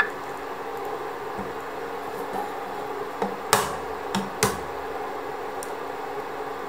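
Pumpkin pieces cooking in a shallow layer of water in a frying pan, a steady low simmer, with three short sharp taps a little past halfway.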